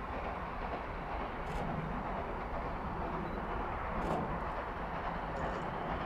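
Industrial Austerity saddle-tank steam locomotive No. 22 working hard as it approaches, heard as a steady rumble of exhaust and running gear. A couple of short sharp clicks come about one and a half and four seconds in.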